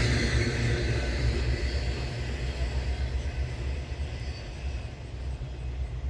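Freight train rolling past, a steady low rumble of wheels on rail that gradually fades as the train draws away.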